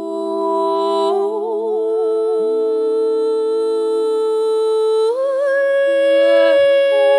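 Several women's voices singing wordless, humming-like long held notes in harmony, with vibrato as the notes shift about a second in and again about five seconds in.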